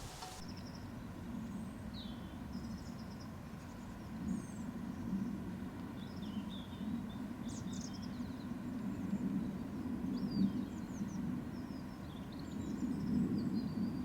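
Small songbirds chirping and singing in short high phrases over a low, steady rumble.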